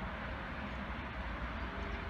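Steady, even rumble of a distant Intercity train hauled by a class 101 electric locomotive rolling through the station tracks.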